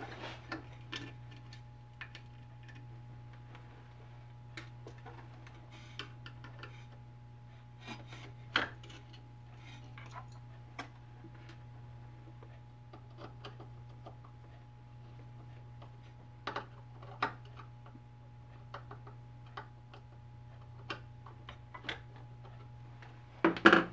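Scattered light clicks, taps and scrapes of a hand tool and small metal parts as a magnetic DRO scale is unscrewed and handled on a mini lathe, with a louder clatter near the end. A steady low hum runs underneath.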